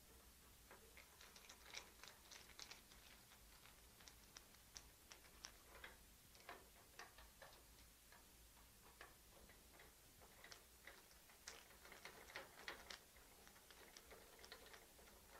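Faint, irregular clicks and taps of small plastic and metal parts being handled as screws are taken out and the carriage-belt tensioner assembly is worked loose from an HP Designjet 1050C plotter. The clicks come in loose clusters, busiest about two seconds in and again about twelve seconds in.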